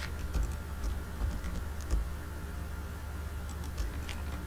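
Scattered light clicks of a computer mouse and keyboard, about a dozen, over a steady low hum.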